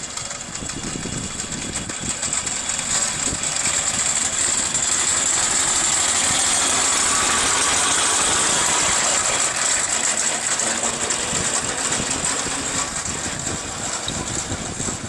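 A 4-inch scale Foster steam traction engine running past, with a strong steam hiss. It grows louder as it draws close about halfway through, then fades as it moves away.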